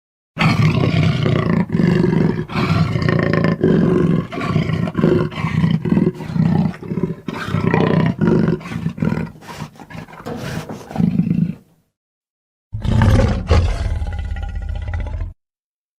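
Giganotosaurus dinosaur roar sound effect: a long roar made of many short pulses lasting about eleven seconds, then after a brief pause a second, shorter roar of about three seconds.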